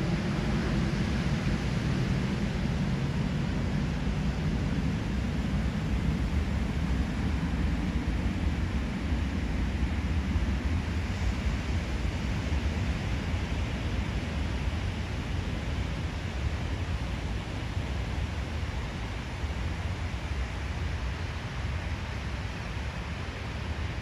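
Small waves breaking and washing up on a sandy beach: a steady rushing noise, with a low rumble underneath that fades over the first several seconds.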